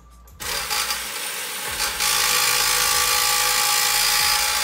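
Handheld power tool running steadily, backing out one of the long bolts that hold a Porsche 996 muffler to the car. It starts about half a second in and runs harder from about two seconds in.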